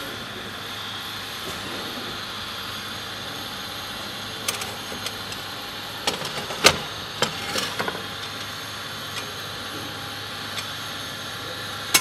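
A steady mechanical hum with a scatter of clinks and knocks, the sharpest a little past the middle, as a dish is handled at an open oven; a louder clatter of crockery comes at the very end.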